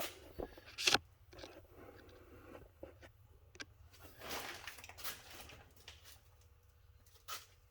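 Faint scattered clicks, knocks and rustling, the sharpest knock about a second in: someone moving about and handling things.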